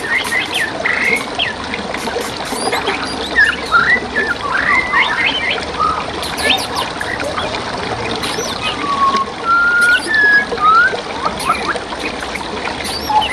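Several songbirds chirping and whistling in quick, overlapping phrases over the steady trickle of flowing stream water, with a few longer slurred whistles near the middle.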